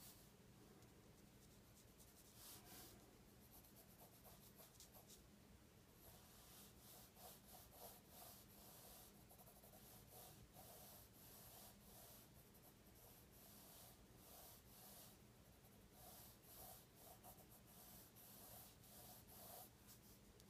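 Faint scratching of a pencil drawing strokes on paper, in runs of quick short strokes that start about two seconds in and come thickest from about six seconds on. A steady low hum lies underneath.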